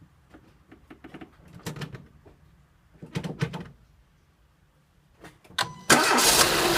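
A few faint clicks and handling noises, then near the end a Renault Mégane II engine is started and runs loudly, on the car that developed a knock after its timing belt was replaced.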